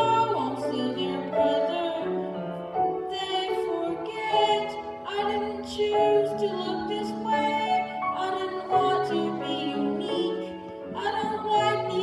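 A show-tune ballad from a stage musical: a singer holding long notes with vibrato over a sustained instrumental accompaniment.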